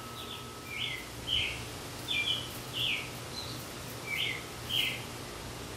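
A bird singing outdoors: a series of short, clear chirps, each slurred quickly in pitch, coming about one or two a second. Under them runs the steady low hum of an outdoor air-conditioning unit.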